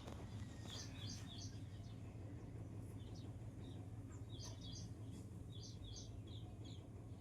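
Small birds chirping: short high notes in quick clusters of two to four, repeating every second or so, over a low steady hum.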